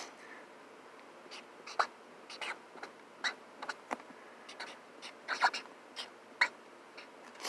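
Felt-tip magic marker squeaking on cardboard in short, irregular strokes as someone writes.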